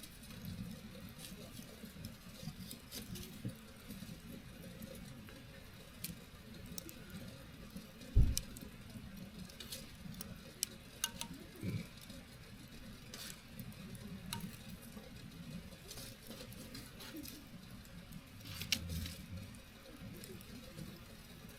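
Campfire crackling, with irregular sharp snaps of burning wood. A single dull thump about eight seconds in is the loudest sound.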